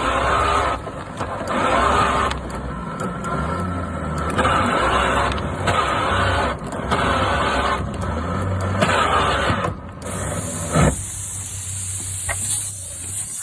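Electric boat anchor windlass motor running in a series of surging bursts, then stopping about eleven seconds in, leaving a steady hiss.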